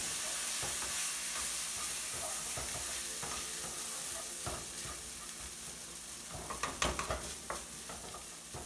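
Onions, flour and just-added red wine sizzling in a hot skillet while a spatula stirs and scrapes the pan bottom. The sizzle is steady and eases slightly, with more scraping taps in the last couple of seconds.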